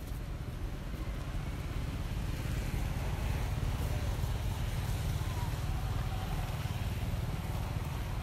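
A motor vehicle engine running, a low rumble that grows louder about two and a half seconds in and then holds steady.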